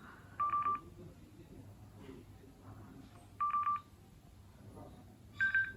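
Parani M10 Bluetooth helmet intercom beeping from its speaker while its button is held to enter the configuration menu: two short beeps at the same pitch about three seconds apart, then a higher beep near the end.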